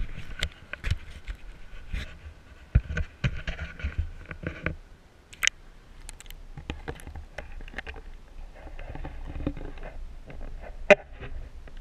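Water sloshing and knocking against a GoPro's waterproof housing as it is dipped at the surface and held underwater, with muffled underwater rumble and scattered clicks and bumps. One sharp knock stands out near the end.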